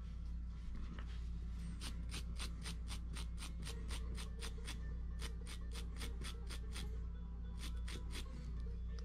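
Screwdriver tip scraping crud off a small locomotive part in quick, even strokes, about four a second, with two short pauses, over a steady low hum.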